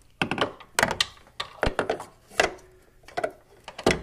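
A string of irregular sharp clicks and knocks as a replacement hood gas strut's end fitting is handled against its mounting stud while it is being clipped into place.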